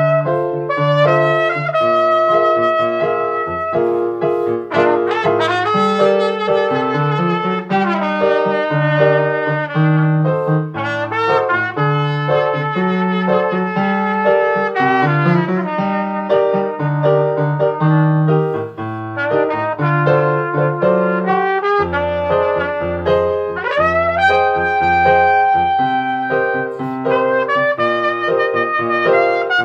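Trumpet playing a melody of held notes, some sliding up into pitch, over a piano accompaniment.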